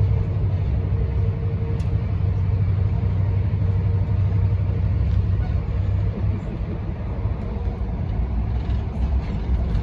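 Steady low rumble of a passenger train running along the line, heard from inside the carriage, with a faint hum through the first half and a single click about two seconds in.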